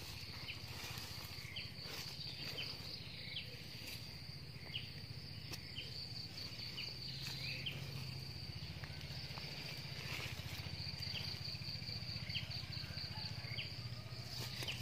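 Insects trilling steadily at a high pitch, the trill breaking into rapid pulses in stretches, with scattered short high chirps and a few faint knocks.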